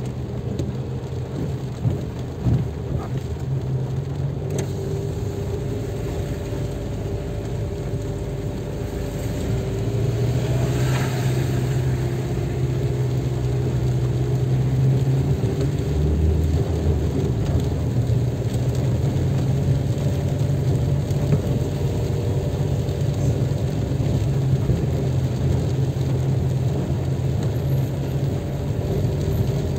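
Car driving in heavy rain, heard from inside the cabin: a steady engine and road hum with rain on the windshield. A short thump about two seconds in, and the hum grows a little louder after about ten seconds.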